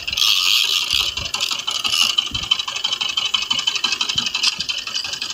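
A boat's engine running with a steady mechanical rattle, the rattle loudest in the first two seconds.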